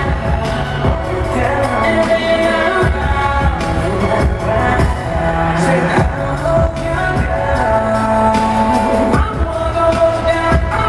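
Live pop/R&B concert music played over an arena sound system, with a performer's vocals into a microphone over a heavy, steady beat.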